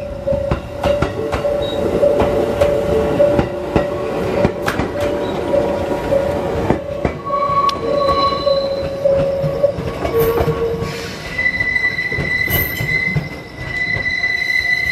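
Electric commuter train passing close and pulling away, its wheels clicking over the rail joints under a steady squeal of wheels on rail. About eleven seconds in, a higher-pitched squeal takes over as the train moves off.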